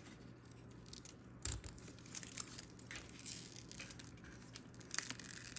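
Vinyl decal sheet being handled and its excess peeled away, giving soft crinkling and crackling. There is a sharper tap about a second and a half in and another near the end.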